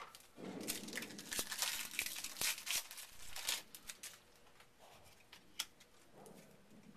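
A trading card pack's wrapper being torn open and crinkled by hand: a dense run of crackling for about three seconds, then a few scattered crinkles and clicks.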